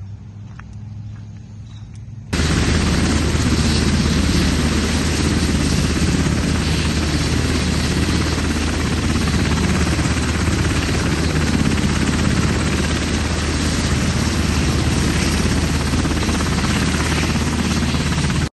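US Army UH-60 Black Hawk helicopter running on the ground with its rotor turning: a loud, steady rotor and twin-turbine noise with a strong low hum, starting abruptly about two seconds in after a short stretch of quieter outdoor sound.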